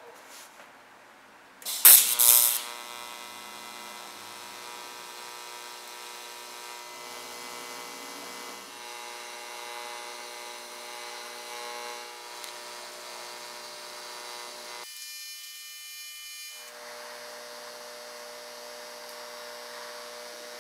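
TIG welding arc fusion-welding a stainless steel tube without filler rod: a steady electric buzzing hum. It strikes up with a loud burst about two seconds in, stops for a couple of seconds about fifteen seconds in, then starts again.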